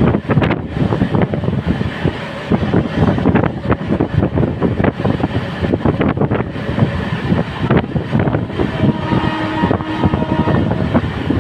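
Moving LHB passenger coach running along the track: wheels clattering and knocking on the rails amid steady running noise, with wind rushing over the microphone.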